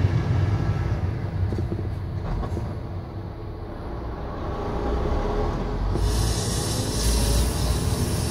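Engine and road rumble of a large vehicle heard from inside its cab as it rolls slowly along. A hiss comes in about six seconds in.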